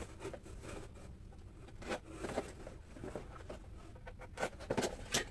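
Cardboard packaging and display pieces being handled: scattered rustles, scrapes and light taps, with a few sharper clicks near the end.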